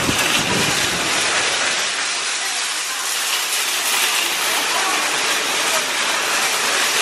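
Large metal wire shopping trolley rattling steadily as it is pushed and its wheels roll over concrete.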